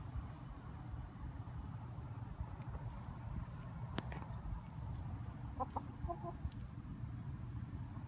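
Buckeye hens giving a short run of clucks about six seconds in, among sharp pecking clicks as they dig in loose soil.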